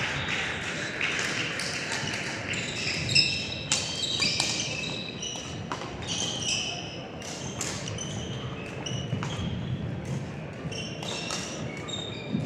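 Court shoes squeaking on a sports-hall floor in a rally, many short high squeaks over one another, with a few sharp hits, the loudest about three seconds in. Faint voices in the hall behind.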